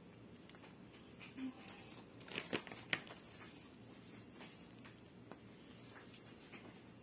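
A plastic cheese packet rustling and crinkling as it is handled and set down on the mat, a few short crinkles and taps, loudest just before three seconds in, then only faint ticks.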